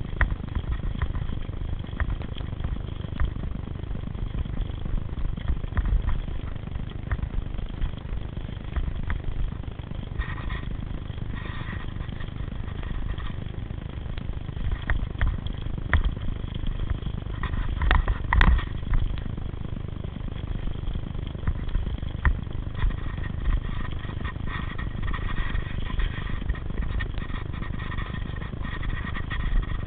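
Mountain bike riding down a dirt forest singletrack: a steady low rumble of wind on the microphone and tyres on the trail, with frequent rattles and clicks from the bike over bumps and one sharper knock about two-thirds of the way through.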